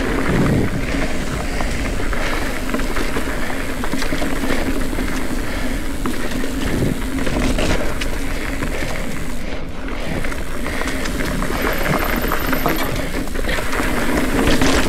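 Ibis Ripley full-suspension mountain bike being ridden along a rough dirt trail: a steady rush of wind and tyre noise, with frequent small knocks and rattles from the bike over the ground.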